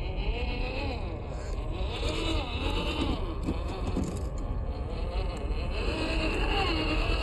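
WPL Toyota FJ40 RC crawler's small electric motor and gearbox whining, the pitch rising and falling over and over as the throttle is worked while it climbs through sand, over a steady low rumble.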